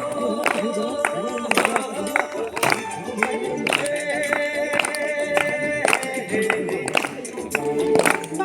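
Music: a song with a singing voice holding and bending notes over a beat of sharp hits, about two a second.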